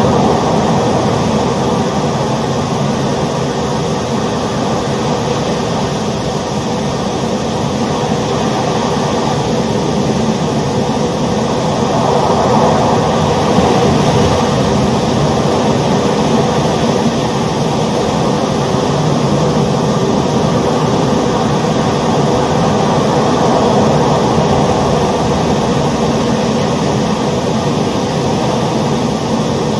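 Steady, dense roar of the ocean, swelling gently twice.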